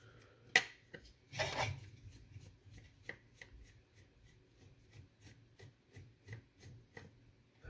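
Screwdriver turning out the screws that hold a small fan motor in its plastic housing. There is a sharp click about half a second in and a brief scraping rustle, then a run of faint light ticks, about three a second.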